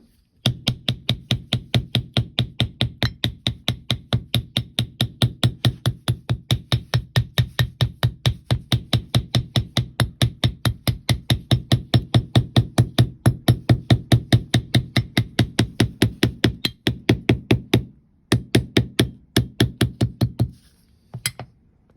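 Small hammer tapping rapidly and evenly on leather, several strikes a second, with a short pause about seventeen seconds in before the tapping resumes.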